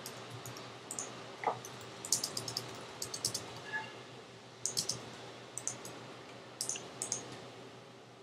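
Typing on a computer keyboard: several short bursts of quick keystrokes with pauses between them, over a faint steady hum.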